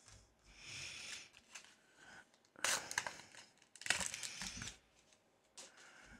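Foil Pokémon booster-pack wrappers crinkling and being torn open by hand, in three main bursts of tearing and rustling.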